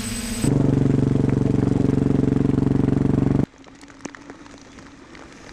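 An engine running steadily at one pitch for about three seconds, starting and stopping abruptly. It gives way to a much quieter stretch with scattered light clicks.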